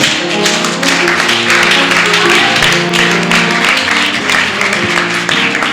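Congregation applauding, many hands clapping, over sustained keyboard chords.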